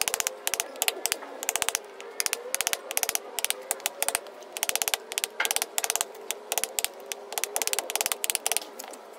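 Wooden mallet tapping a carving chisel into a wood stump in quick runs of sharp taps, several a second, with short pauses between runs.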